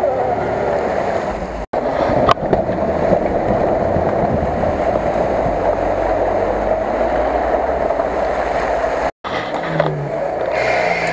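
Off-road 4x4 engines running hard through deep mud, in short clips cut together. Near the end an engine revs up in a few strokes, its pitch rising each time.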